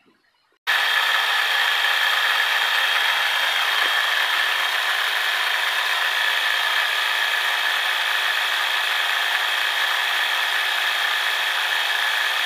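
Small 12-volt portable air compressor running steadily, pumping up a car tyre through a hose on the valve stem. It starts abruptly about a second in and runs with an even, high-pitched buzz.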